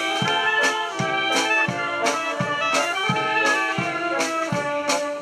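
Military brass band playing a march over a steady drum beat.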